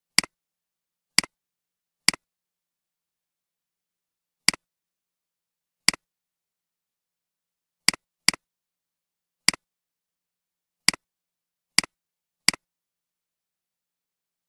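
Computer mouse clicks: eleven single clicks at irregular intervals, each a quick double tick, with dead silence between them.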